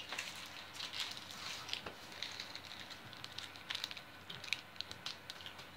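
Faint crinkling and rustling of a plastic snack wrapper being handled, in scattered small crackles.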